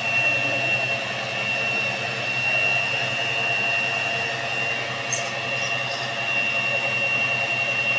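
Electric kitchen mixer running steadily as it beats cake batter: an even motor noise with a constant high whine.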